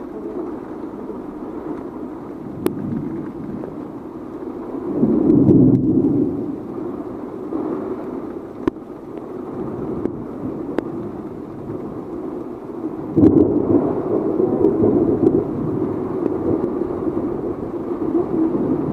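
Heavy rain and gusty wind of a thunderstorm, a steady rushing that swells loudly about five seconds in and again suddenly from about thirteen seconds on, with a few sharp ticks scattered through it.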